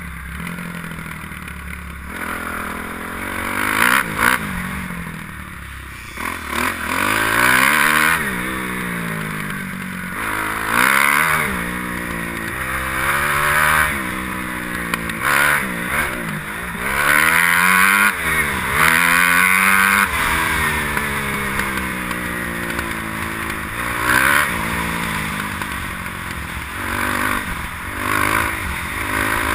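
Kawasaki KX250F four-stroke single-cylinder motocross engine, recorded on the rider's helmet, revving up and down over and over as the throttle is opened and shut and the gears are changed around the track.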